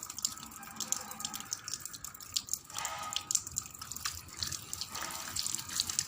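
Water running from a tap into a sink, splashing and dripping as hands are washed under it.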